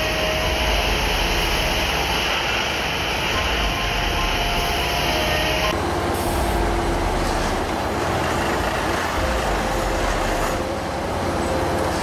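Plasser & Theurer 08-16 GS/UM tamping machine at work, its diesel engine and hydraulics running steadily with faint shifting whines. About six seconds in the sound turns suddenly duller as the high hiss drops away.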